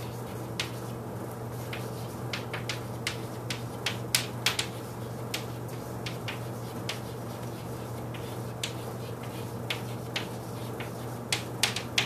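Chalk writing on a chalkboard: irregular sharp taps and clicks as the chalk strikes and moves across the board, over a steady low hum.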